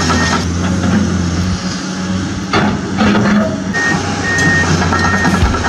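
Excavator engine rumbling steadily under a reversing alarm whose evenly spaced high beeps sound once near the start and then repeatedly in the second half.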